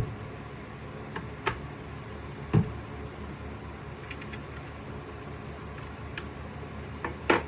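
A few scattered clicks and knocks from handling an opened Ryobi 18-volt crown stapler, over a steady low hum; the loudest knock comes about two and a half seconds in.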